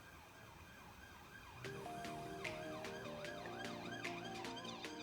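Background electronic music: a quick, repeating up-and-down synth warble, with a beat and held chords coming in about a second and a half in.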